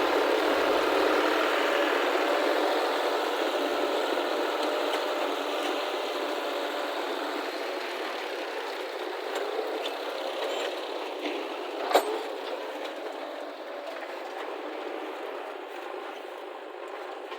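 Diesel engine of heavy earth-moving machinery running steadily and slowly growing fainter, with one sharp clank about twelve seconds in.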